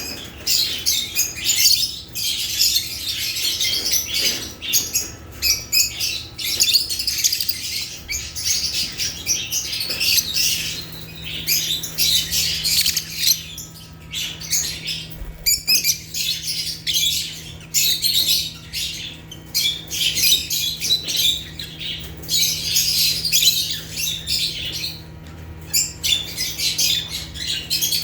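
A flock of African lovebirds chirping and squawking in a continuous, dense chatter of shrill, high-pitched calls. A faint steady hum runs underneath.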